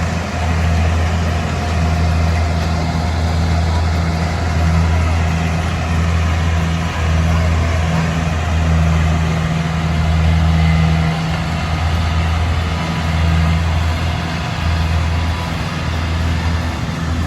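Engine of a rice combine harvester running steadily with a deep, continuous hum that swells and dips a little every second or two.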